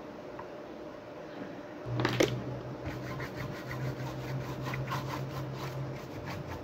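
Small clicks and scraping of hand tools against a car amplifier's circuit board during soldering work. Over it runs a low steady hum that starts about two seconds in and stops near the end.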